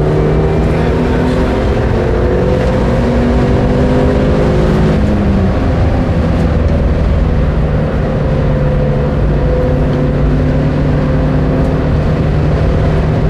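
Turbocharged 2.0-litre four-cylinder engine of a Mitsubishi Lancer Evolution MR FQ-360, heard from inside the cabin under hard acceleration at speed, over heavy road and wind noise. The engine note climbs steadily, dips briefly about five seconds in, then pulls on again.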